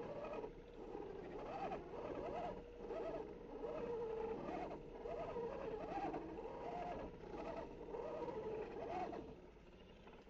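Electric motor of an Axial SCX10 Jeep JK Rubicon RC crawler whining up and down in pitch over and over, about once a second, as the throttle is feathered on a slow climb, with scattered clicks. The whine stops shortly before the end.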